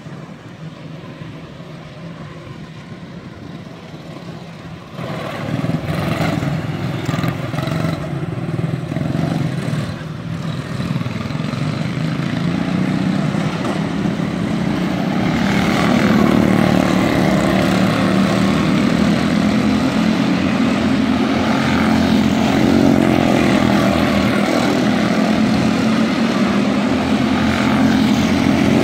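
Small Honda engines of Junior Honda class race cars running in a heat race, a steady engine drone. It grows louder about five seconds in and again about halfway through, then stays loud.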